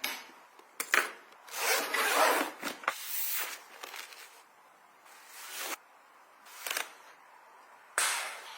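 Belongings handled during packing: a string of short rustling and scraping strokes with a few sharp clicks and quiet gaps between.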